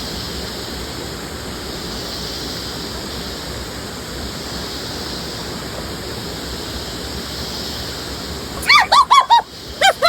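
Steady rushing of a waterfall. About a second before the end it gives way abruptly to a series of loud, short bird calls, each rising and falling in pitch, several in quick succession.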